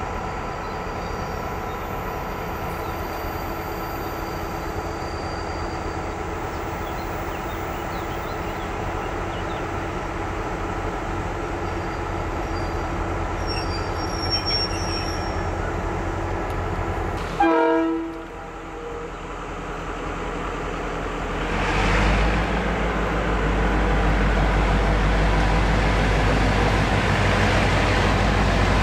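Diesel locomotives of the EMD-built 664/2062 class: an engine idling with a steady hum, a short horn blast about two-thirds of the way through, then a heavier, louder diesel rumble setting in a few seconds later as the engine is put under load or the approaching locomotive draws near.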